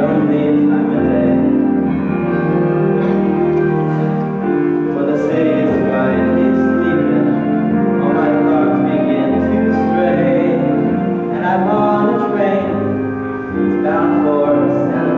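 Music: a young male voice singing a Broadway show tune solo, over piano accompaniment with held chords.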